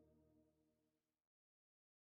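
Near silence: the last faint trace of an ambient music bed fades out a little past halfway, leaving dead silence.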